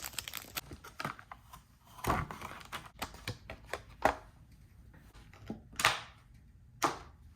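Hands handling computer parts and packaging: scattered light clicks, taps and rustles, with three sharper clicks in the second half.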